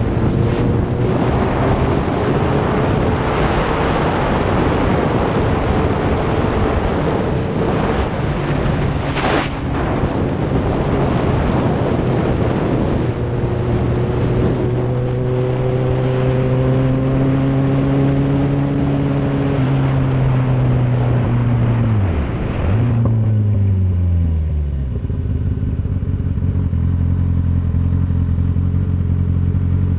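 Motorcycle engine running at cruising speed under heavy wind and tyre hiss. About twenty seconds in the engine note falls in steps as the bike slows down, and for the last few seconds it settles into a steady idle with the rush of wind gone.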